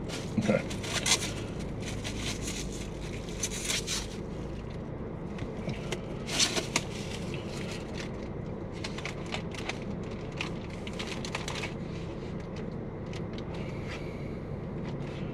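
Fast-food paper wrappers and packaging being handled: irregular rustling, crinkling and small scrapes, louder in the first few seconds and again about six and a half seconds in, over a steady low hum.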